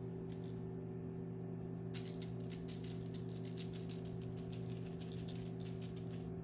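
Plastic shaker jar of gold sprinkles being shaken, the sprinkles rattling in the jar and against the lid's holes in a quick run of ticks that starts about two seconds in. A steady low hum sits underneath.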